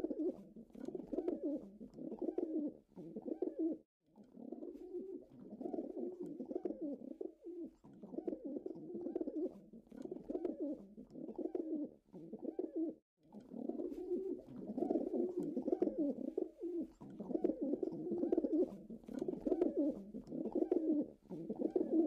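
Domestic pigeons cooing: low, repeated cooing phrases in a near-continuous run, broken by two short pauses, about four seconds in and about thirteen seconds in.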